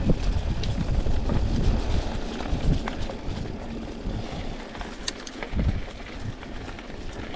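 Mountain bike riding a dirt trail: tyres rolling over dirt and leaf litter, with scattered clicks and rattles over a steady low rumble.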